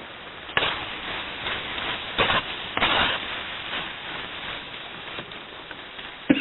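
A spoon stirring and scraping through dry chicken in a cooking pan: several short scratchy strokes over a steady hiss.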